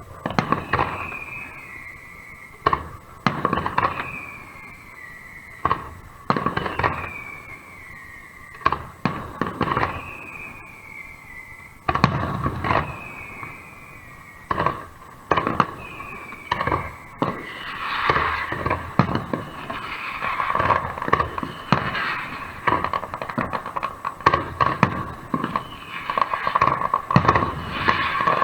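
Fireworks display: shells bursting with sharp bangs every couple of seconds, a falling whistle trailing between them. About two-thirds in, the bursts come thick and fast into a rapid crackling barrage.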